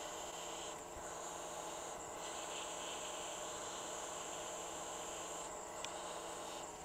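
Hot air rework station blowing a steady high-pitched hiss and whine over an iPhone 6S Plus NAND chip to melt its solder so the chip can be lifted off. The whine drops out briefly just under a second in and shifts again about two and five and a half seconds in, with a faint click near the end.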